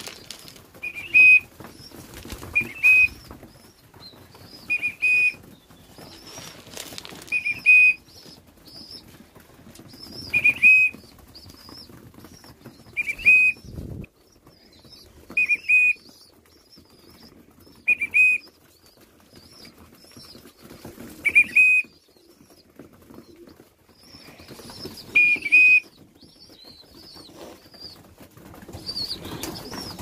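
A feeding whistle blown in short blasts, about ten of them every two to four seconds, while a flock of young racing pigeons feed and flap their wings in between. The whistle is kept going while the food lasts so the birds learn that the whistle means food and its stopping means none.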